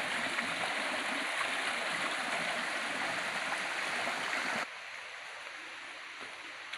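A rocky forest stream running over boulders: a steady rushing of water. It cuts off abruptly about four and a half seconds in, leaving a much quieter background.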